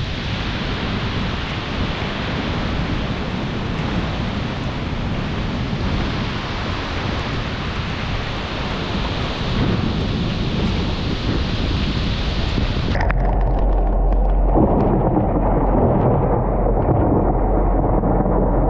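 Heavy thunderstorm rain and wind as a dense, steady hiss. About two-thirds of the way through the hiss cuts off abruptly, and a deep low rumble carries on loudly to the end.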